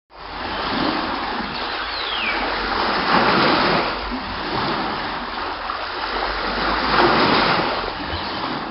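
Wind and sea noise on a boat offshore, with water splashing and swelling louder twice. There is a short falling whistle about two seconds in.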